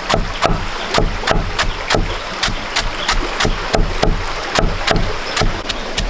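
Knife chopping steadily on a wooden board, about three strokes a second: feed being minced for the chickens.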